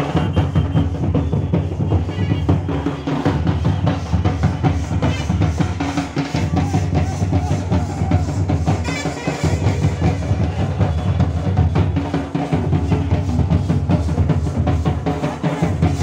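A band of large barrel drums (dhol) pounding a fast, steady beat.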